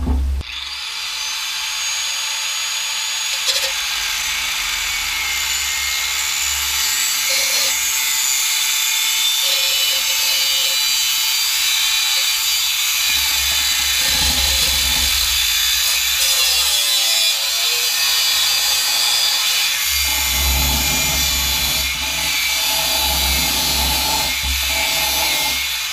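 Angle grinder with a cutting disc starting up and cutting into a van's exhaust pipe at the catalytic converter: a loud, steady, high grinding hiss with a low rumble that rises and falls as the disc bites.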